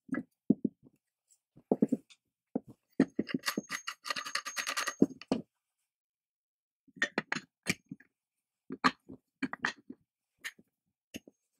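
Metal and plastic parts of a restored chain mortiser clinking and knocking against each other and the wooden workbench as they are handled and fitted together. A dense run of rapid clinking lasts about two seconds a few seconds in, followed by a short pause and then scattered separate clicks and knocks.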